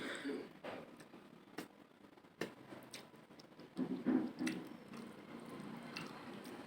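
Wet chewing and lip-smacking of someone eating rice and curry, with scattered sharp clicks. The loudest stretch of chewing comes about four seconds in.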